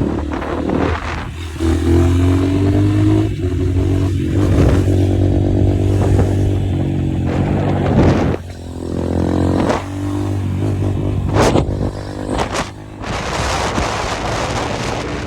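Dirt bike engine running, its pitch rising and falling as it is revved, with a rushing noise near the end.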